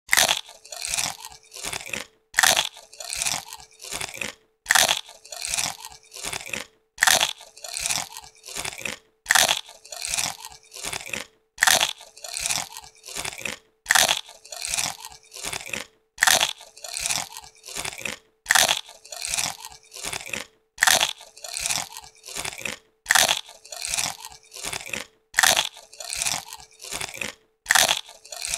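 Someone biting into and chewing crisp potato chips: a loud crunching bite followed by three or four fading chews, the pattern repeating evenly about every two and a quarter seconds.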